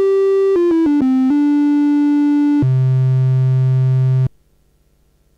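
Arturia MiniBrute analog synthesizer playing a triangle-wave line with no effects: a few quick notes, a long held note, then a lower held note that cuts off abruptly with no echo or reverb tail.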